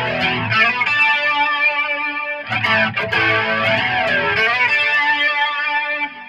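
Electric guitar lead played through an overdrive pedal into a Hiwatt Maxiwatt 50 amp, picked up by the camera's microphone: held notes with string bends and vibrato, with a new phrase struck about two and a half seconds in.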